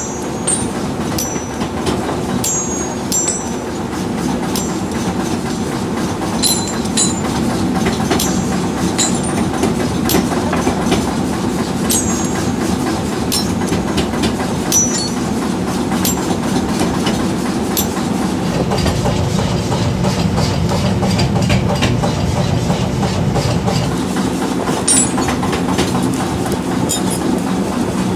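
Workshop machinery running steadily with a low hum, overlaid by irregular sharp metallic clinks and short high ringing pings of metal parts. The low rumble grows louder about two-thirds of the way through.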